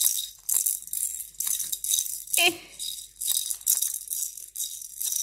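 A baby's rattle toy shaken in short bursts, about two shakes a second, with a brief voice sound about two and a half seconds in.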